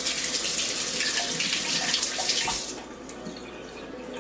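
Kitchen tap running water into a sink, shut off about two and a half seconds in.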